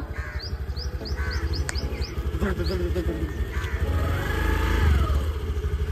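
Small scooter engine running with a steady low pulsing, while small birds chirp repeatedly over it.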